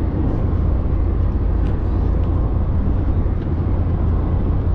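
Moving car on the road: a steady low rumble of engine and tyre noise.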